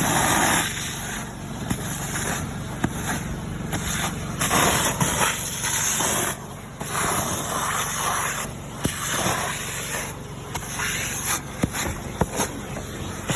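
Gutter vacuum running with a steady hum, its rushing suction surging and easing, with scattered sharp clicks and cracks as debris is sucked through.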